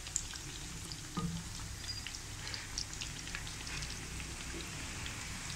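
Besan-battered vegetable pakoras (eggplant slices, green chillies, cauliflower) sizzling gently in oil in a karahi turned down to a low flame, a steady hiss with scattered small crackles.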